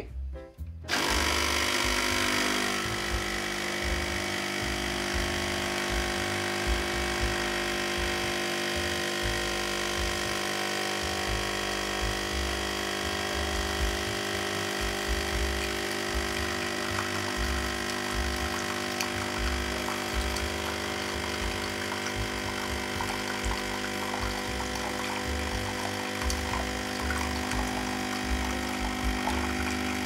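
De'Longhi Scultura espresso machine's vibratory pump starting about a second in and buzzing steadily as it pushes water through the coffee in the portafilter during a shot.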